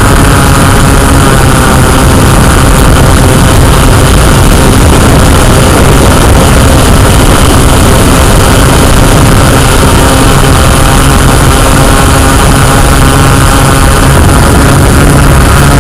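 Yuneec Q500+ quadcopter's electric motors and propellers buzzing steadily and loud, a dense multi-toned whine heard close up as the drone descends.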